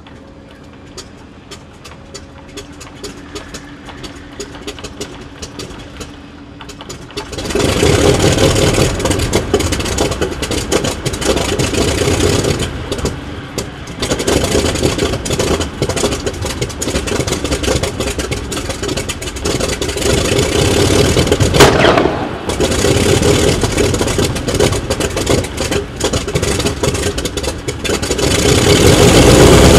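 Grumman F6F Hellcat's Pratt & Whitney R-2800 radial engine being started: the starter cranks the propeller over with quiet regular ticking, then about seven seconds in the engine catches and settles into a loud, rough run. A single sharp pop comes about two-thirds of the way through, and the engine grows louder near the end.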